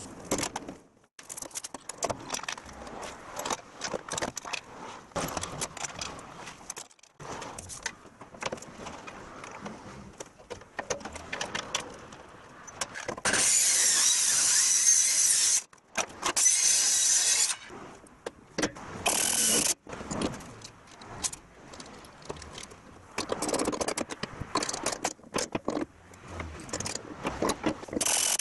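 Workshop metalwork on a truck body: scattered metal knocks, clicks and rattles of tools and parts, broken by bursts of a corded handheld power tool running with a whine. The longest burst comes about halfway through, with two shorter ones soon after.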